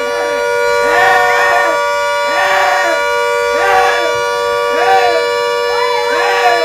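A vehicle horn held down continuously on a steady chord of tones. Over it come repeated shouts that rise and fall in pitch, about one every second and a half.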